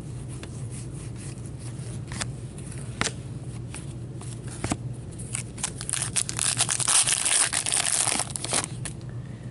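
Trading cards tapping and clicking a few times as they are handled. From about halfway, a foil card-pack wrapper crinkles and tears open for some three seconds.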